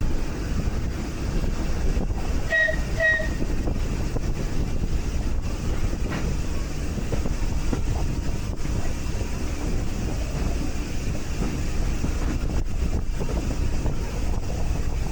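Heritage railway train running along the track: a steady low rumble with some wind noise. Two short, high pitched notes sound about two and a half seconds in.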